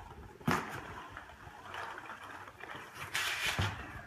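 Foam packing peanuts rustling and squeaking as hands dig through them in a cardboard box and push them out, with a sharp knock about half a second in and a louder rustle around three seconds in.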